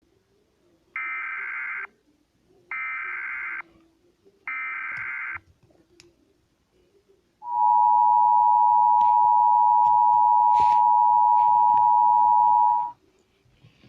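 Emergency Alert System header: three short bursts of SAME digital data tones, then the two-tone EAS attention signal (853 and 960 Hz) held steady for about five and a half seconds and cut off sharply. The data bursts carry a tornado warning header, which the uploader thinks is valid enough to trigger a cable box.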